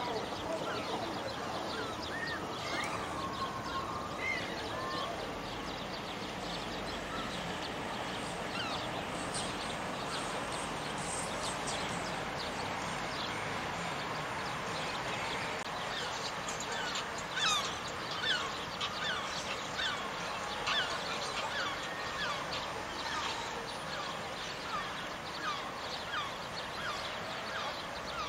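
Birds calling in many short chirps, coming thicker in the second half, over a steady background hiss.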